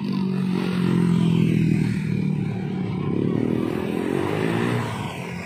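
Motorcycle engines in street traffic passing close by. The engine note holds steady, then bends in pitch and fades as they go past.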